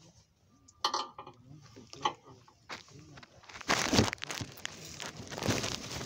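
Rustling and handling noise as a phone is swung about among grapevine leaves, loudest about four seconds in, after a few scattered clicks.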